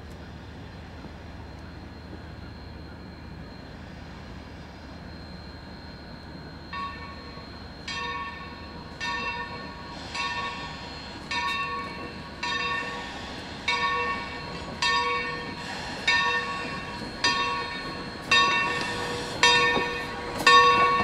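Steam locomotive's bell ringing about once a second, starting about seven seconds in and growing louder as the engine draws near, over the low rumble of the approaching train.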